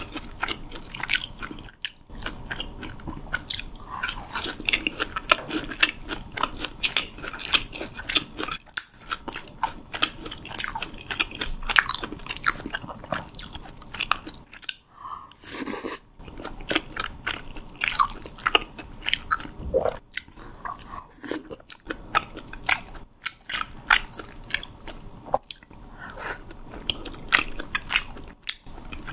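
Close-miked crunching and chewing of deep-fried menbosha (shrimp toast), a steady run of crisp crackling bites with a brief lull partway through.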